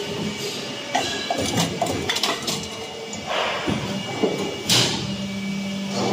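Injection moulding machine running through a cycle: clicks and clatter while the mould is open, then the mould platen slides shut with a sharp clank near the end, after which a steady low hum sets in.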